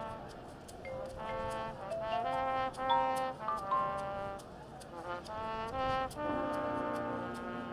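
High school marching band's brass section playing sustained chords and short moving phrases in a competition field show. Steady high ticks keep time underneath.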